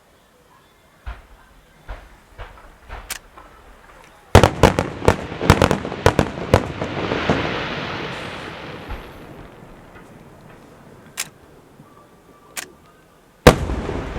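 Fireworks going off: a few scattered bangs, then a rapid volley of sharp reports about four seconds in that trails into a crackling hiss fading over several seconds. Two lone bangs follow, and a loud one near the end.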